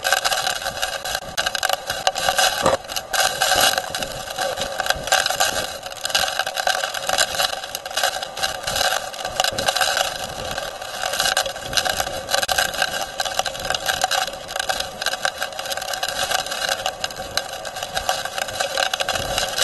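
Hurricane-force wind gusting against a vehicle, heard from inside the cabin, with rain pelting the windshield and rattles. The roar swells and falls with each gust, punctuated by many short hard hits.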